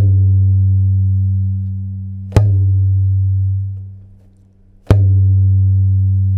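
Tabla bass drum (dagga) played with the open, resonant stroke ge: three strikes with the tips of the joined middle and ring fingers on the middle ring of the head. Each strike is a deep, low boom that rings on and slowly fades, about two and a half seconds apart.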